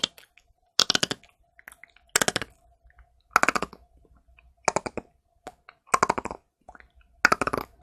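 Beatbox click roll made with the tongue peeled sideways off the palate: six short bursts of rapid rattling clicks, each about half a second long and spaced a little over a second apart. It is the looser, relaxed-tension form of the click roll, the one that sounds like cracking bones.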